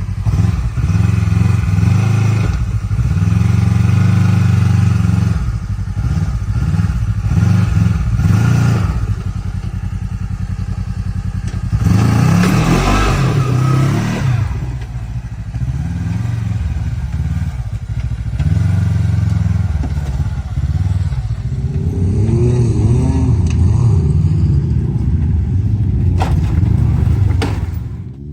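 Side-by-side UTV engine running on an off-road trail, its speed rising and falling as it is driven, with clatter and thumps from rough ground and a sharp knock near the end.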